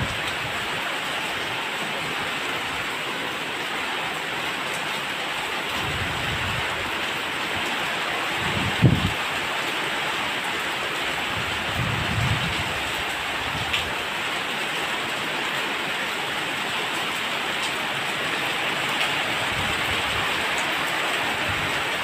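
Heavy rain falling steadily and splashing on wet ground in a downpour with strong wind. A few low thumps break through, the loudest about nine seconds in.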